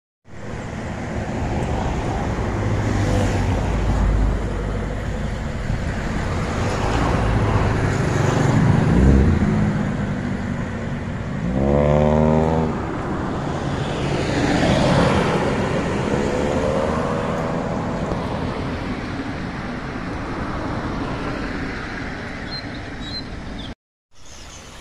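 Road traffic passing: a steady rush of tyres and engines, with a vehicle's engine note rising and falling about halfway through. It cuts off abruptly near the end, giving way to quieter running water.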